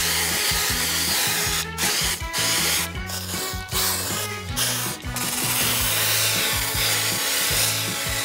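Aerosol can of black food-colouring spray hissing in several long bursts with short breaks between them, coating a burger bun.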